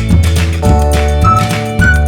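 Upbeat background music: a strong bass line, with short high melody notes over it.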